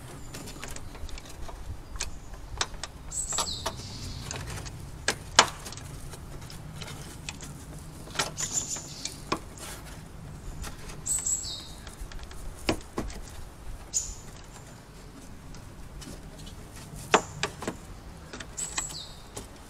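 Scattered sharp clicks and knocks as the engine-bay side cover panel is pressed into place by hand and its clips are snapped in. A bird chirps in short falling calls several times over a steady low hum.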